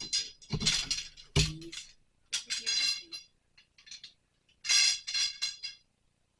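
Parts of a clothes drying rack clinking and clattering as they are handled and clipped together, in several quick clusters of sharp, ringing knocks.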